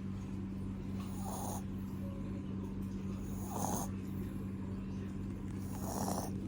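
A sleeping dog snoring, three noisy breaths about two seconds apart, over a steady low hum.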